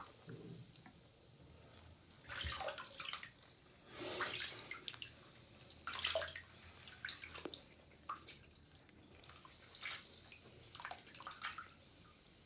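Bath water sloshing and dripping as a hand sweeps through thick foam around a dissolving bath bomb, in a few irregular bursts of splashing over a faint steady hiss.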